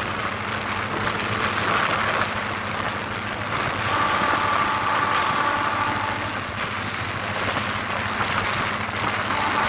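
Passenger train running along the track, heard from an open door: steady rumble of wheels on rails with wind rushing past, and a faint high whine that comes and goes in the middle.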